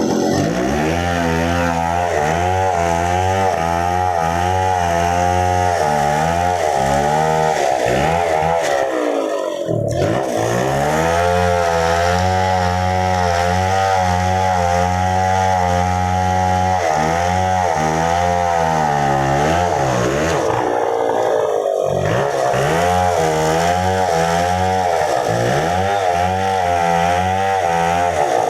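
Chainsaw running hard while cutting a tree, its engine pitch rising and sagging under load, dropping off briefly twice (about nine and twenty-one seconds in) before revving back up.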